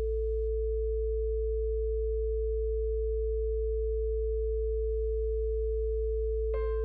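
A steady pure sine tone at 55 Hz, the low frequency claimed to soothe Tourette syndrome, held with a second steady tone a little above 400 Hz. A faint soft music bed drops out about half a second in, and piano notes come in just before the end.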